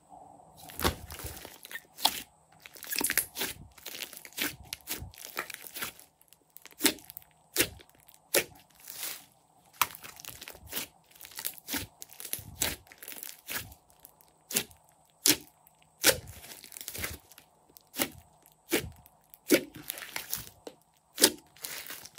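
Hands squeezing, stretching and folding a large mass of thick glossy slime mixed with clay, giving irregular sharp pops and clusters of crackling as air pockets in the slime burst.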